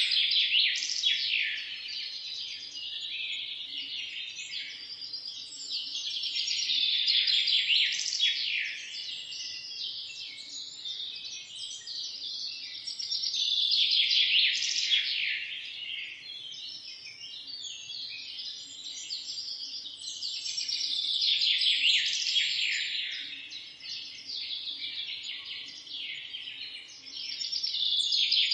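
Many small birds chirping and twittering at once in a dense chorus, swelling louder and dying back about every seven seconds.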